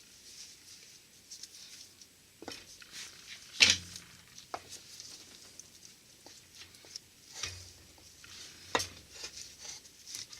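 Steel transmission parts clinking and knocking as the countershaft cluster gear of a Borg-Warner T-10 four-speed is lifted out of the case and handled, with scattered light clicks and two sharper knocks, about four seconds in and again about nine seconds in.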